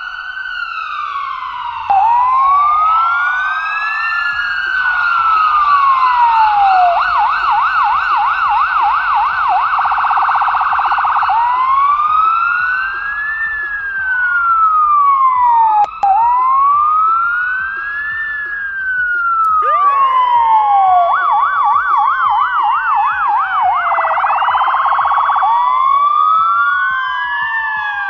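Ambulance siren wailing, its pitch rising and falling slowly over several seconds, twice switching to a fast yelp. Further siren sweeps overlap it, so more than one siren is sounding at once.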